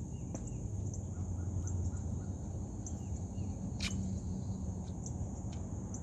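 Outdoor ambience: insects making a steady high drone, with a bird giving a quick run of about five short chirps a little over a second in, over a steady low rumble.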